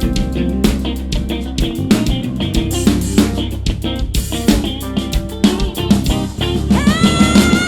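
Live band playing an instrumental passage: guitar lines over bass guitar and drum kit. Near the end a long held note with vibrato comes in over the band.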